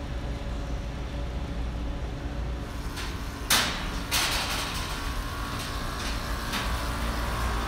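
Footsteps knocking on a steel mesh catwalk, a step roughly every half second from about four seconds in, over a steady low hum. A single sharp knock comes just before the footsteps begin.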